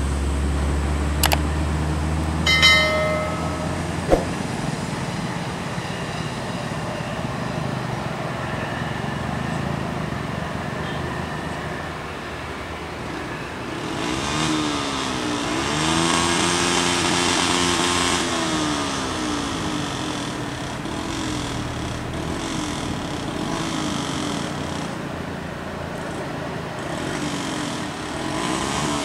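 Bus diesel engine working through the mountain curve, its pitch rising and falling as it changes speed and gears, loudest about halfway through and then fading as it moves away. A few sharp knocks in the first few seconds.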